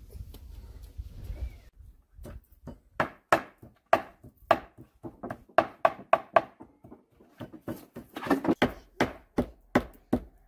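Kitchen knife chopping raw chicken on a cutting board: irregular sharp knocks, a few a second, starting about two seconds in after a low rumble.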